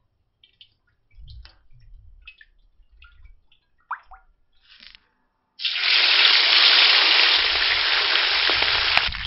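Oil trickling and dripping faintly as it is poured from a plastic bottle into a large aluminium pot. About six seconds in, a loud, steady sizzle starts suddenly: parboiled chicken pieces deep-frying in hot oil.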